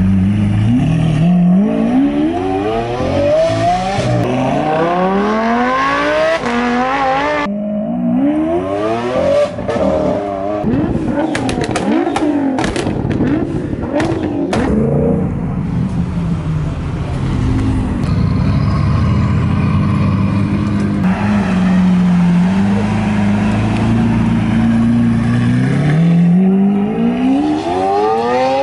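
Supercar engines revving and accelerating hard across several edited clips: a Lamborghini Aventador's V12 rising through the revs again and again as it pulls away. In the middle, a run of sharp cracks and pops comes over revving Nissan GT-R engines, followed by a long stretch of steady engine note. Near the end another Aventador V12 accelerates away with a rising note.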